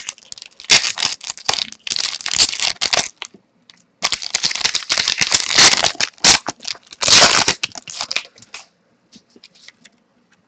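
A trading-card pack wrapper being torn open and crinkled, in rough crackling bursts through the first three seconds and again from about four to eight and a half seconds.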